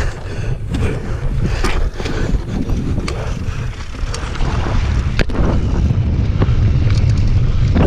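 Wind buffeting the microphone of a helmet camera on a downhill mountain bike at speed, with the rumble of tyres on loose dirt and several sharp knocks from the bike over rough ground.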